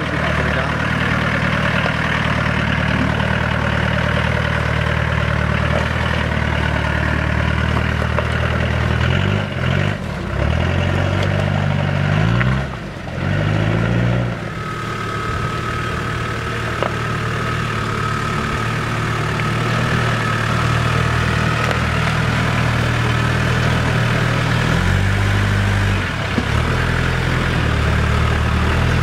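Land Rover 4x4 engine running at low revs while crawling over rocks, revving up and down a few times about a third of the way in and again near the end. A thin steady whine sounds over it for several seconds in the middle.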